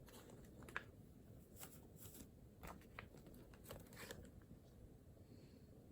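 Faint, scattered scratching and rustling of paper, a few short strokes a second apart, over near-silent room tone.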